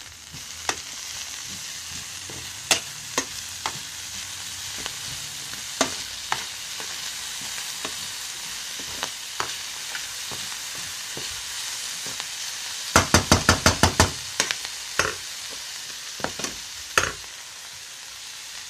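Chopped onions, garlic and coriander frying with a steady sizzle in a steel frying pan while a metal spoon stirs them, scattered clicks and scrapes of the spoon against the pan. Past the middle the spoon gives a quick run of about eight taps in a second.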